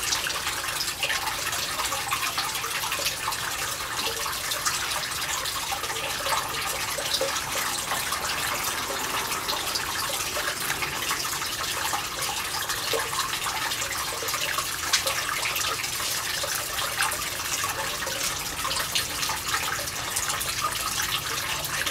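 Water running steadily, a constant splashing hiss.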